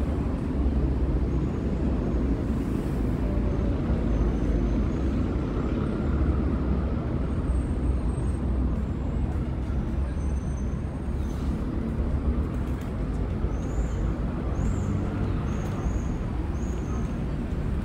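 Steady low rumble of city traffic around the park, with a few faint high chirps near the end.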